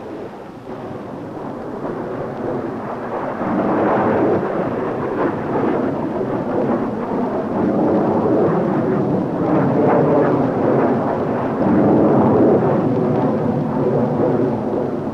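Jet engines of an Ilyushin Il-62 airliner at takeoff power: a steady, thunder-like rushing rumble that grows louder about three to four seconds in and stays loud.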